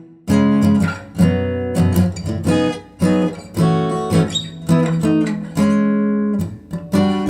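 Acoustic guitar music: chords strummed repeatedly, with a brief break just after the start.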